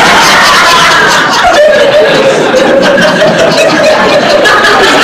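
Live theatre audience laughing loudly and steadily after a punchline.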